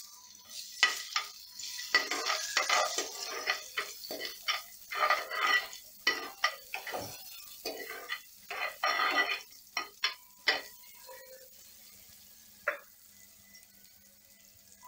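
A steel ladle stirs sliced onions in hot oil in a frying pan, making repeated scraping strokes against the pan over a light sizzle. After about ten seconds the stirring stops and only a faint sizzle is left, with one sharp clink.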